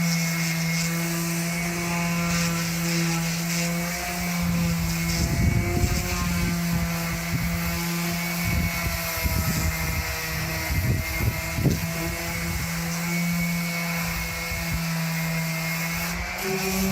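Power sander with 150-grit paper sanding a bare steel bumper: a steady motor hum with irregular knocks and scuffs against the metal through the middle, and the hum rising in pitch near the end.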